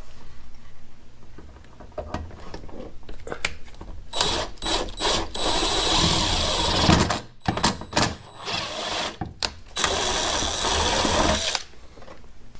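Cordless DeWalt 20V drill boring holes up through the sheet-metal underside of a car hood. It starts about four seconds in and runs in several bursts with short stops, a steady high whine over the noise of the bit cutting metal.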